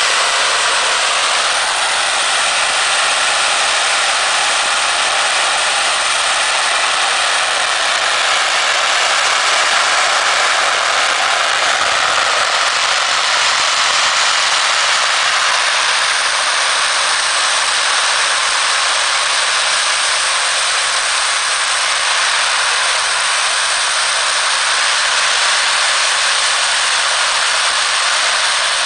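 Giant hanging strings of firecrackers going off together, so many reports at once that they merge into one continuous, dense crackle that holds steady throughout.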